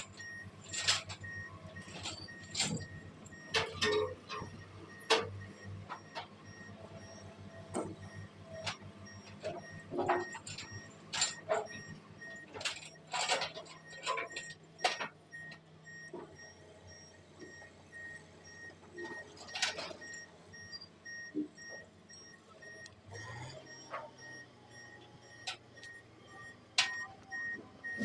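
Hitachi KH150 crawler crane's diesel engine running steadily, its note shifting about two-thirds of the way in, under a steady repeating electronic beep. Frequent sharp clanks and knocks as the concrete pile is lowered onto the stack and the rigging is handled.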